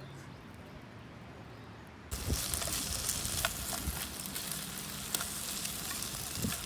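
Faint background hush, then about two seconds in a steady sizzling hiss with scattered sharp crackles starts suddenly: a campfire and its cooking.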